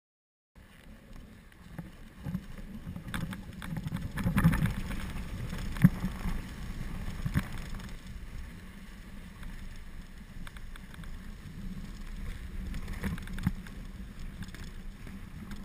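Pulk sled towed on rigid shafts sliding along a groomed cross-country ski track, giving a steady low rumble with a sharp knock every second or two as the skier strides.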